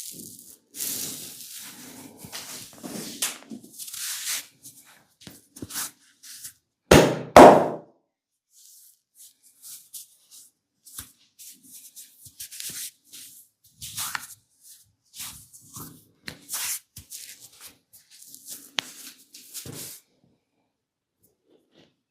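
Hands-on massage: hands rubbing and pressing on skin and clothing, with two loud sharp smacks in quick succession about seven seconds in, then scattered quieter rubs and small clicks.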